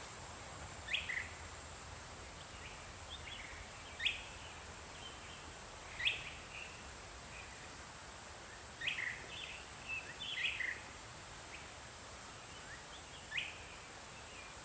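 Wild birds giving short, sharp down-slurred chirps every few seconds, a few in quick clusters, over a steady high-pitched insect drone.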